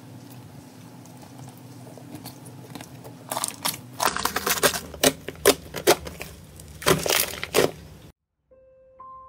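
Clear green slime being kneaded and squeezed by hand with aerosol foam folded into it: wet squishing with sharp pops and crackles of trapped air, several a second from about three seconds in. The squishing cuts off just after eight seconds, and a few soft musical notes begin.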